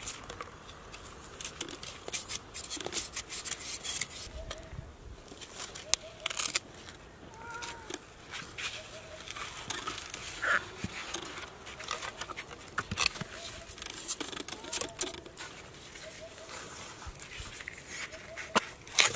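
A knife scraping and cutting into a roasted, charred cow's hoof on a stone slab, prising the hoof casing off: an irregular run of sharp scrapes and clicks.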